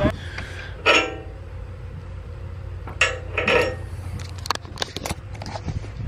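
Metal parts of a grain cart's unloading auger knocking and clinking as it is taken apart, with sharp ringing knocks about a second in and at three seconds and lighter clicks near the end. An engine idles low underneath.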